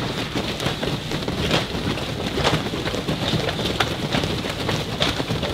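A group of people doing jumping jacks: many feet landing on the mat out of step, making a dense, irregular patter of soft thuds and slaps.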